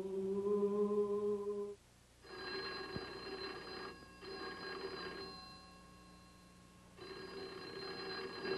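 Rotary desk telephone bell ringing in a film soundtrack: a ring of about three seconds with a tiny break in it, a pause of under two seconds, then ringing again near the end. Before the first ring, a held low humming note for the first second and a half or so.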